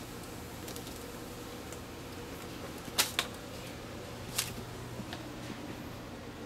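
Light clicks and taps from a kitten playing among cables and plastic gadgets: two close together about three seconds in and another about a second later, over a steady low hum.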